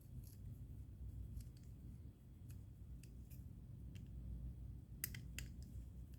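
Small metallic clicks and ticks of a Torx driver bit working the screws of a Kershaw Blur folding knife as they are loosened, with a sharper pair of clicks about five seconds in. A low steady hum runs underneath.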